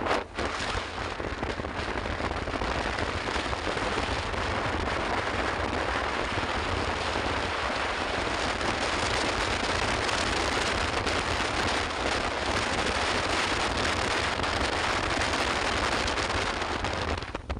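Wind rushing over a phone microphone on a moving two-wheeler at speed, mixed with road noise: a steady loud hiss over a low rumble, with a brief drop just after the start.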